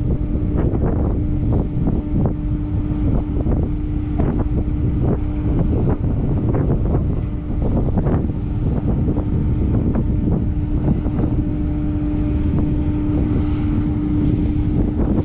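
Strong wind buffeting the microphone with a gusty, fluttering rumble, over the steady hum of the ro-ro ferry MV Earl Thorfinn's engines as the ship comes in slowly alongside the pier.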